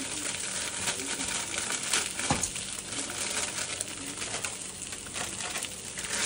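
Plastic food packets crinkling as hands work them open and shake them over a pot, with many small sharp clicks throughout.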